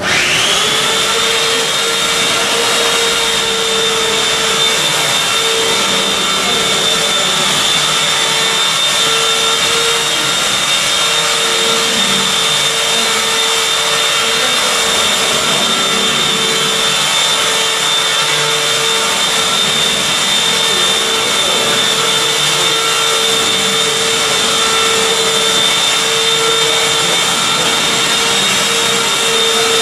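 An electric motor or machine switched on, whining up to speed within the first second and then running loud and steady at one pitch.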